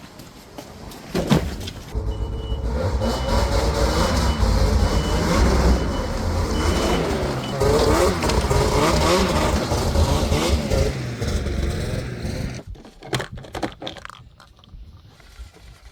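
A vehicle engine starts up and runs, revving with its pitch rising and falling, while a high warning beep repeats about one and a half times a second for several seconds, like a reverse alarm; the engine drops away near the end, followed by a few knocks.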